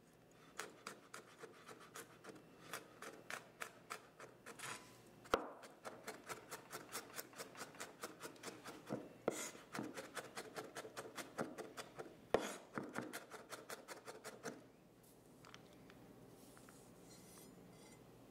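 Chef's knife mincing garlic on a wooden cutting board: quick, regular taps of the blade against the board, several a second, with a few louder knocks. The tapping stops about three seconds before the end.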